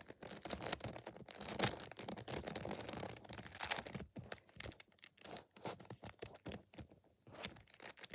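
Plastic 3x3 Rubik's Cube being turned by hand: a busy run of clicking and scraping as its layers are twisted, thinning to separate clicks about halfway through.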